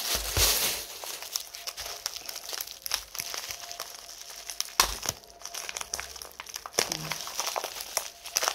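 Plastic film crinkling and crackling as a rolled diamond-painting canvas in its clear plastic wrap is handled and unrolled, with a few sharp crackles and a dull thump right at the start.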